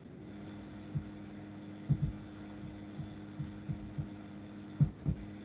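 Steady low hum with irregular dull low thumps, about nine of them, the loudest about two seconds in and again near the end.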